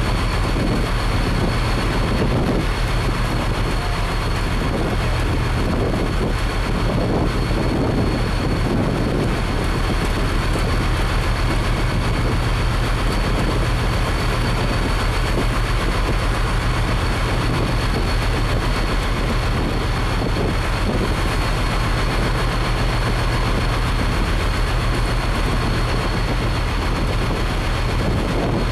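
Steady drone of a boat's engines heard on board, with a constant thin high whine above it and wind noise on the microphone.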